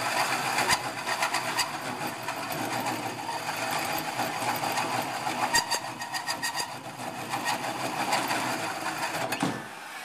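Cordless drill turning a hole saw through steel plate: a steady grinding run with scattered clicks as the teeth cut the groove. The drill stops with a falling whine near the end.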